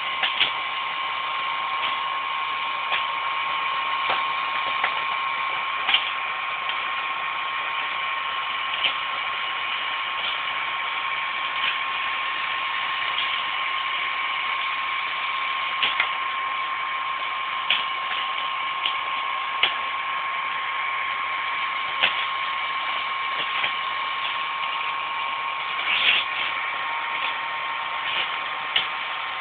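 Hand-held hair dryer running steadily, a whine with a steady tone, blowing hot air onto a male mould to melt it out of a cured carbon-fibre shell. Short sharp clicks come every few seconds.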